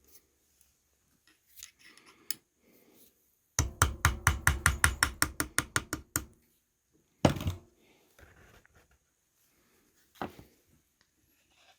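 Hammer striking a punch to mark the metal bearing caps of a Suzuki Sidekick front differential: a quick run of about twenty light taps over two and a half seconds, then a single sharp strike, and a faint tap near the end.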